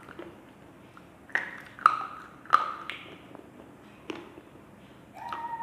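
Slate pencil being bitten: three sharp, crisp snaps about half a second apart, each with a brief ring, then a fourth snap a moment later. Near the end comes a short tone that falls in pitch.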